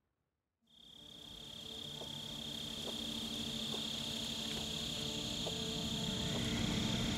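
Bush ambience fading in from silence: a steady high insect trill over a faint low hum.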